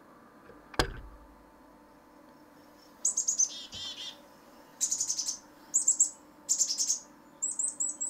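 Recording of black-capped chickadee calls played from a tablet's speaker: runs of quick, high chick-a-dee notes, some ending in lower buzzy dee notes, starting about three seconds in. A thump of handling just under a second in comes first.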